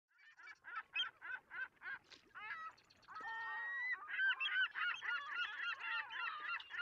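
Geese honking: single calls at about four a second at first, then from about four seconds in many calls overlapping, as from a flock.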